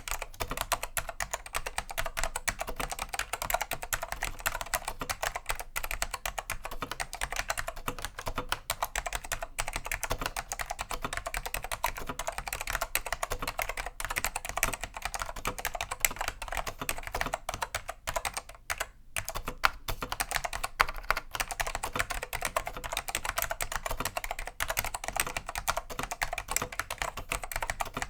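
Steady, fast typing on a Dell AT101 keyboard with tactile Alps SKCM Black 'pine' switches: a dense stream of key clacks, with a brief pause about two-thirds of the way through.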